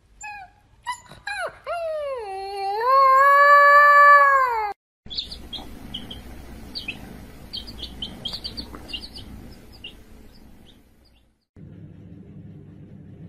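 Husky-type puppy howling: a few short yelps, then one long howl that dips and climbs again. After it, chicks peeping in short high chirps.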